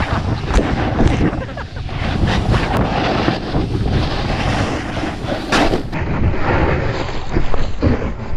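Wind buffeting an action camera's microphone on a fast-moving snowboard, with the board scraping and spraying through snow. The noise is loud and continuous, broken by irregular thumps.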